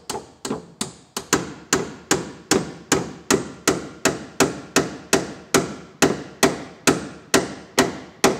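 Hammer tapping a door hinge pin into its hinge barrel on a car door: steady, evenly spaced blows, about two and a half a second, each ringing briefly.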